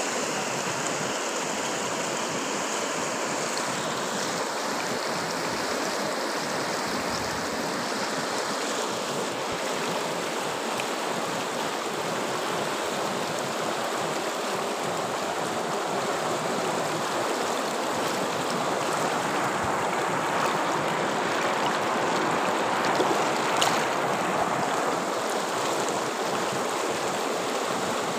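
Fast mountain river rushing steadily over shallow rapids, a continuous wash of white water that swells slightly about two-thirds of the way through.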